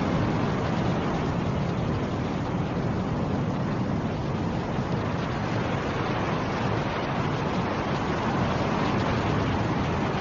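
Snowstorm wind blowing steadily as a dense low rushing noise, swelling and easing gently.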